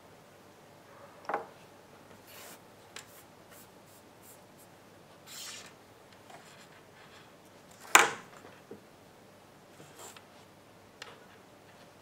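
Hands handling thin wires and small crimp pins on a tabletop: light rubbing and rustling with scattered small clicks. A sharp click or tap about eight seconds in is the loudest sound, and a smaller one comes just after the first second.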